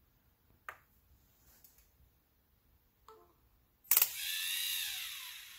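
LEGO Mindstorms EV3 large motor running, raising the robot arm through its small-to-big gear train: a sharp clack as it starts, then a whine that rises and falls in pitch and fades over about two seconds. A small click comes earlier.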